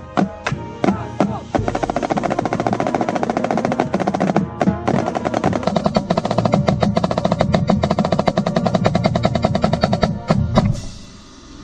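High school marching band percussion section playing a fast, dense passage of rapid drum strokes over sustained band chords. It ends on a final accented hit about ten and a half seconds in, which then rings away.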